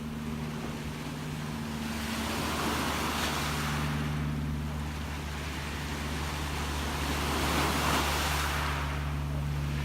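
Gentle sea waves washing ashore, the wash swelling about three seconds in and again near eight seconds, over a steady low hum.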